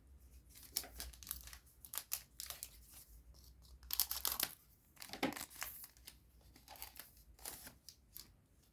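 Foil trading-card booster pack being torn open and its wrapper crinkled: a run of short, sharp tearing and crackling noises, busiest around the middle.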